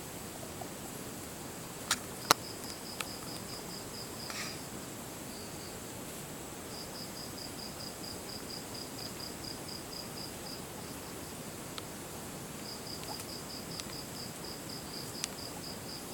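Guinea pig chirping: a high, bird-like chirp repeated evenly about five times a second in runs of a few seconds. A couple of sharp clicks come about two seconds in.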